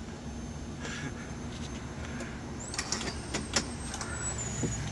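Motorhome engine idling, heard from inside the cab as a steady low rumble with a few light clicks. A thin high whine comes in a little past halfway and holds on.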